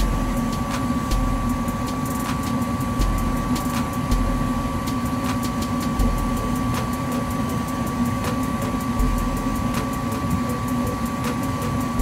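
Gas furnace running steadily: a constant mechanical hum with a steady high whine from the draft inducer motor and firing burners, and faint light ticks about every half second.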